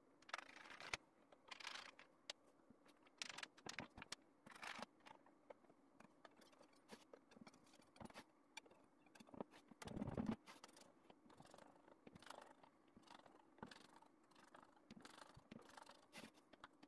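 Faint rustling and scraping of thin phyllo dough sheets being handled and laid into a metal baking tray, in short irregular bursts, with a louder scuff about ten seconds in.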